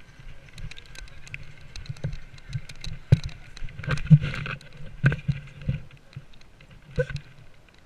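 Footsteps and rustling, with irregular knocks and scrapes as a helmet-mounted camera is jostled and handled; the loudest knocks come about three and four seconds in.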